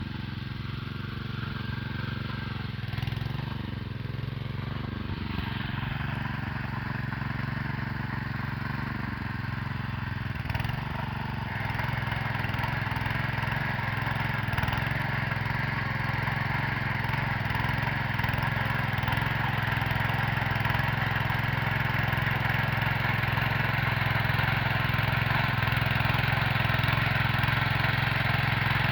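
Tractor engine running steadily with a rotavator tilling the soil; the sound grows louder and harsher about twelve seconds in.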